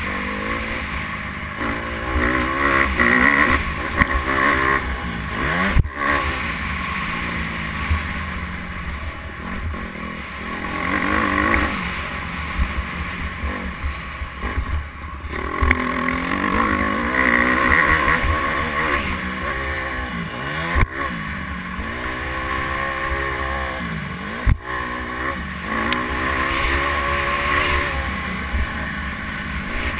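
Motocross dirt bike engine, heard from the rider, revving up and falling back again and again as it accelerates out of turns and along straights, with wind rushing over the microphone. Three sharp knocks come through along the way.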